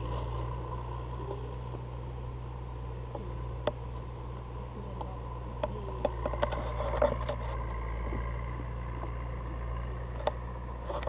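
Steady low rumble of wind on a handheld action camera's microphone, with a few sharp clicks and rustles from the camera and paragliding harness being handled.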